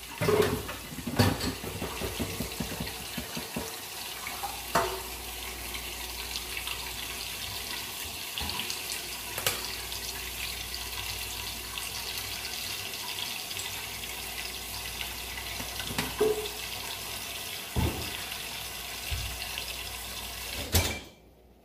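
Kitchen tap running into the sink while dishes are washed by hand, with occasional clinks and knocks of dishes. The water shuts off near the end.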